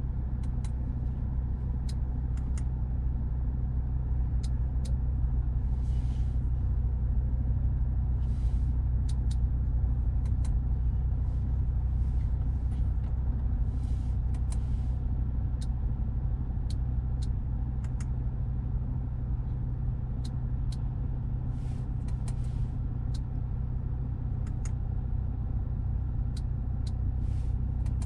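Audi RS3's turbocharged five-cylinder idling steadily as a low, even hum heard inside the cabin. Over it come many sharp clicks, the infotainment controls being operated, and a few short hisses.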